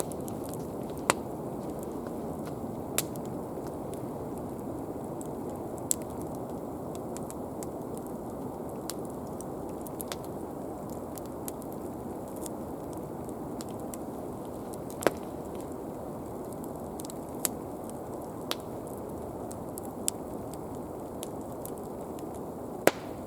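Wood fire burning with a steady rush and sharp, irregular crackling pops, as from a burning Swedish torch log.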